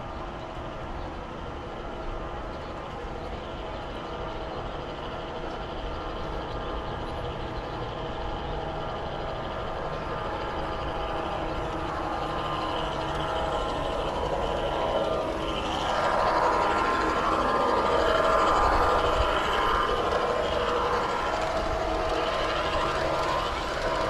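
Garden-scale model train running along its outdoor track: a steady whine with the rumble of wheels on rail. It grows louder as the train approaches and is loudest about two-thirds of the way through, as it passes close by.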